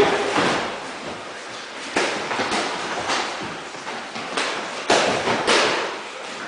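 Stick sparring: training sticks clacking against each other and the fighters' gear in a series of sharp, irregularly spaced knocks, the loudest about five seconds in.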